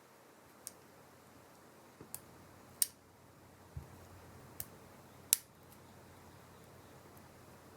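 Irregular small, sharp clicks and taps of tools and parts being handled while an iPhone 7 is taken apart or put back together, about seven in all, two of them louder and one a duller low tap.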